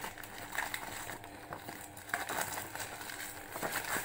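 Clear plastic shrink-wrap crinkling in the hands as it is peeled off a phone's retail box: a string of irregular crackles.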